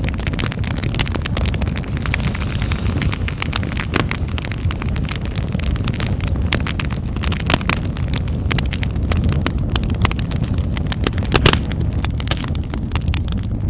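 Wood fire in a fireplace crackling, with many sharp pops and snaps over a steady low rumble.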